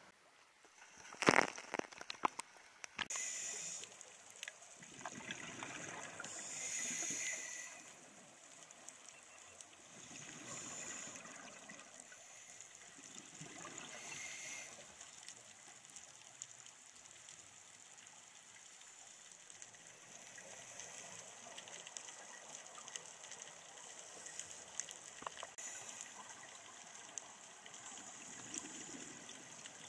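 Water sloshing and gurgling, heard through an underwater camera: gushing bursts over the first fifteen seconds, then a quieter steady hiss, with a couple of sharp knocks about a second in.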